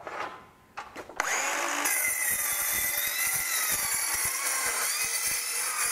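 DeWalt DCS373 18 V cordless metal circular saw starting up after a few light clicks, then cutting through a roughly 2 mm thick metal cable-tray section. It makes a steady, wavering whine under a loud, high hiss.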